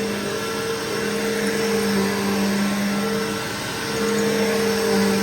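Bissell Powerforce Bagged upright vacuum cleaner running steadily, its motor giving a constant hum with a rushing of air, dipping slightly in level a little past halfway as it is pushed over the carpet.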